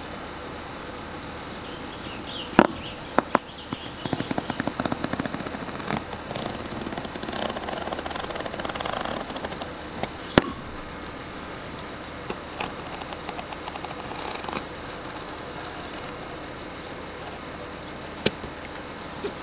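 Utility knife cutting through a pool's wall liner. A run of rapid ticking and rasping comes in the middle as the blade is drawn along the cut, with a few sharp clicks, the loudest about two and a half seconds in.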